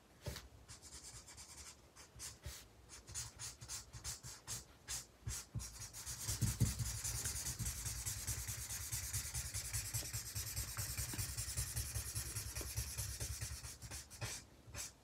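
Felt tip of a Promarker alcohol marker rubbing across paper while colouring in: separate short strokes at first, then, from about six seconds in, continuous quick back-and-forth scribbling that stops near the end.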